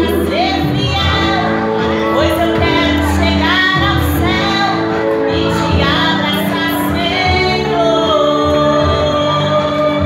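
A woman singing into a hand-held microphone, her voice amplified, with gliding phrases and a long held note near the end.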